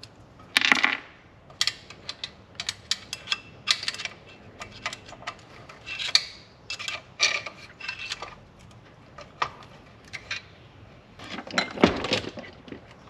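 Magnetic pickup rod clicking and scraping inside an open mower engine crankcase, with scattered light metallic ticks as fragments of the broken governor flyweight are gathered up. Near the end there is a louder clatter as the engine block is lifted.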